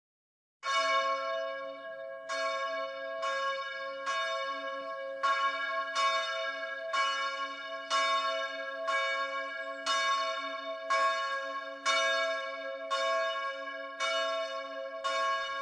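A single church bell tolling, struck about once a second, each stroke ringing on under the next; it starts about half a second in.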